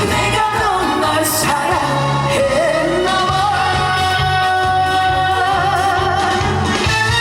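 Live trot song: a male singer holds long notes with vibrato over instrumental accompaniment, with one long sustained note through the second half.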